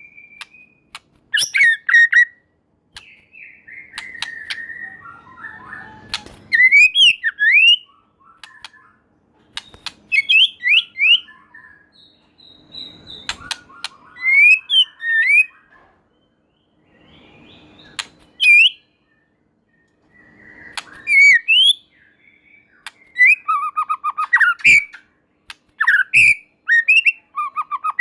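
White-rumped shama singing: loud phrases of rising and falling whistled notes, one every second or two with short pauses between them, mixed with sharp clicks and some harsher chattering notes.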